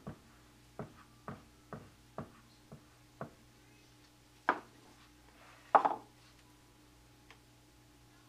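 Soap-making bowl and plastic utensils handled on a countertop: about six light taps, roughly two a second, as of a utensil knocked against the bowl's rim, then two louder knocks with a short clatter as containers are set down.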